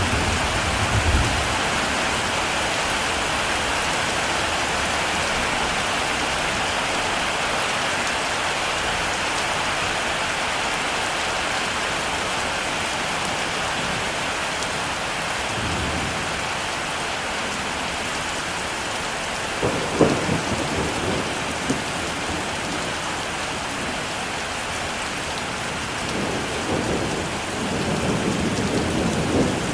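Heavy rain falling steadily, with thunder rumbling several times: a short rumble about halfway through, a sharper crack with rumble about two-thirds in, and a longer rumble building near the end.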